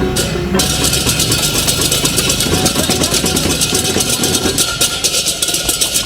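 An engine running steadily with a fast, even ticking, starting about half a second in.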